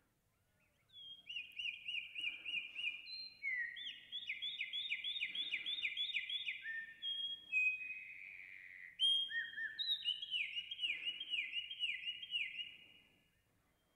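Recorded Eurasian wren song played back slowed to half speed, an octave lower: a long run of rapid, repeated whistled notes in series, each phrase a quick string of downward-sweeping notes, with the individual notes now separable. It ends in a fast trill.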